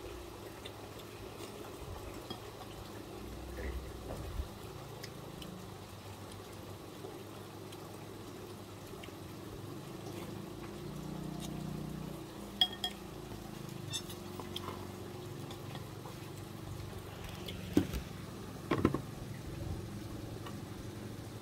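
A metal spoon clinks sharply against a ceramic bowl a few times while someone eats, with a louder cluster of clinks near the end. A steady watery hiss runs underneath.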